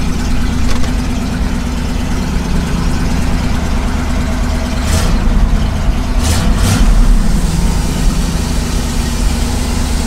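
Truck engine idling steadily, with a couple of brief clunks about five and six and a half seconds in.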